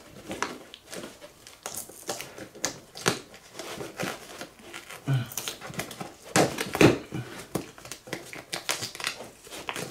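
A hoistway key scraping and picking at the packing tape on a cardboard shipping box: irregular crinkling, scratching and tapping of tape and cardboard.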